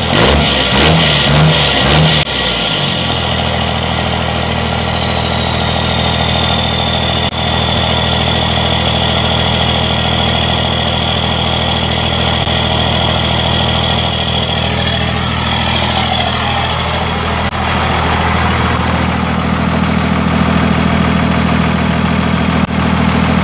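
A 1998 Dodge Ram 2500's 24-valve Cummins 5.9-litre turbodiesel straight-six is blipped a few times through a dump-axle exhaust, an untipped pipe ending just ahead of the rear axle, then settles to a steady idle. A high turbo whistle winds down after the revs and then holds steady.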